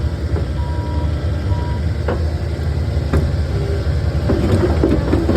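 Takeuchi skid steer's diesel engine running steadily under work, with a few sharp metal clanks and rattles as it moves dirt. Two short high beeps sound near the start.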